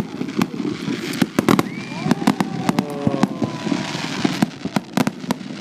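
Fireworks going off: rapid, irregular bangs and pops, with a few drawn-out whistling tones over them.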